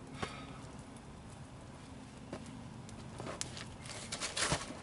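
Footsteps on dirt and the scattered knocks and scrapes of wooden log poles being handled. The knocks come a few at a time, busiest with a rustling scrape near the end.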